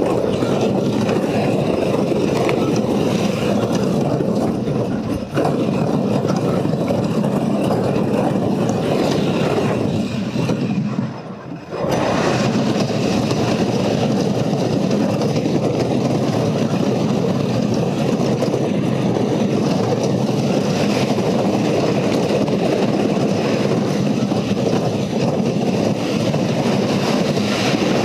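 Switchback, a wooden roller coaster, with its train running along the track and heard on board as a loud, steady rumble of wheels and rushing air. The rumble drops away briefly about eleven seconds in.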